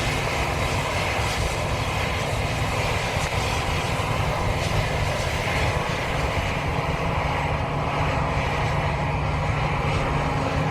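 Heavy John Deere combine machinery running steadily, an even, continuous drone with a constant hum.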